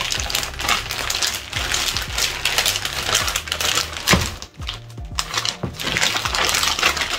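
A zip-top plastic bag crinkling and rustling in quick, dense clicks as chunks of seasoned steak are shaken and kneaded inside it, easing off briefly about four and a half seconds in.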